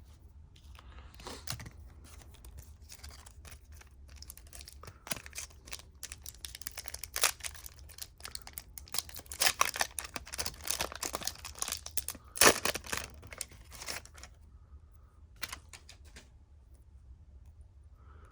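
A trading-card pack's wrapper being torn open and crinkled: a run of crackling rustles, with one sharp loud rip about two-thirds of the way through before it quiets down.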